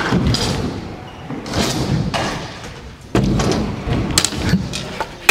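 Scooters rolling and knocking on wooden skatepark ramps in a large hall, with a heavy thud about three seconds in and a few sharp clacks after it.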